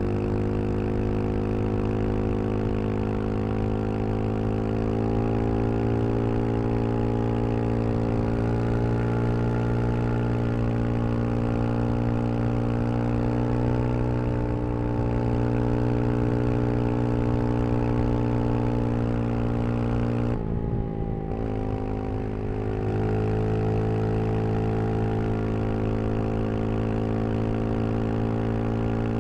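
Brixton Crossfire 125 XS's small single-cylinder engine running at a fairly steady speed, its note drifting slightly. About twenty seconds in the note briefly drops, then settles again.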